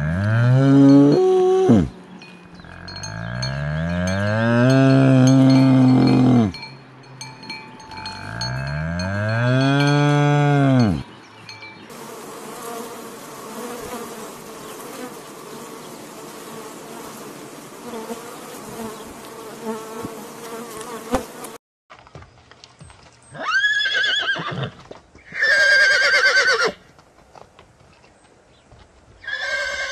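A sequence of animal sounds. First come three long, low calls that rise and fall in pitch, like cattle lowing. Then a steady insect buzz runs for about ten seconds, and after a break there are a few shorter, higher animal calls.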